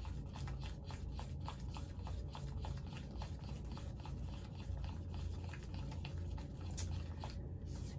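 A spatula stirring a wet, honey-thick jelly mask mix in a mixing bowl: quick, irregular squishing and scraping clicks, several a second.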